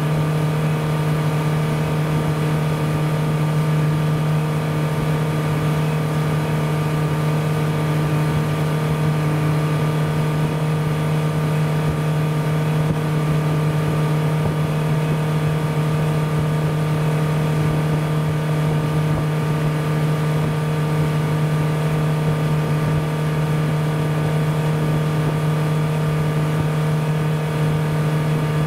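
Motor boat's engine running steadily while underway, a constant drone heard from on board.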